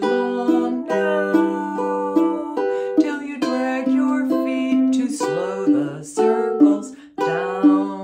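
Ukulele strummed in a slow folk song, with a woman singing along in long held notes.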